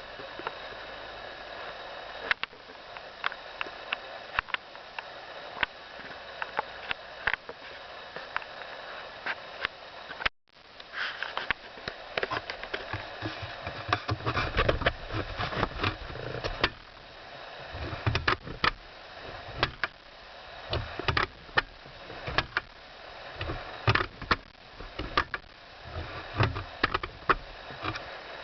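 BMW E60 front seat backrest creaking and clicking in irregular bursts over a steady hiss, with dull knocks among the creaks in the second half; the sound cuts out briefly about ten seconds in.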